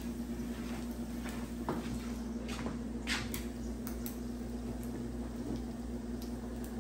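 A cooking utensil scraping and clicking intermittently against an electric griddle's flat top and a plate as fried rice is scooped off and plated, over a steady low hum.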